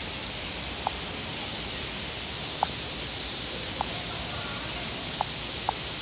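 Steady rush of falling water from a small waterfall, with five short plinks scattered irregularly through it.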